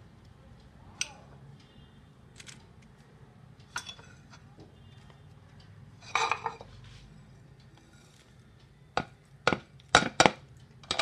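Sparse light clicks and knocks of a plate against a plastic mixing bowl as chopped ingredients are tipped in, with a quick run of sharper taps near the end.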